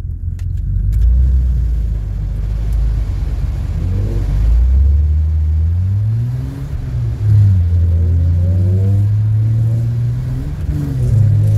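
Car engine revving hard in repeated climbs, the pitch rising, dropping back and rising again, over a low rumble, heard from inside a car sliding on a snowy road.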